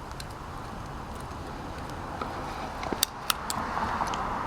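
Steady outdoor background hum like distant road traffic, with two sharp clicks about three seconds in.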